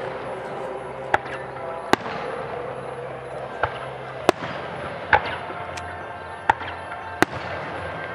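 Aerial fireworks display: shells bursting with sharp bangs, about seven of them, irregularly spaced.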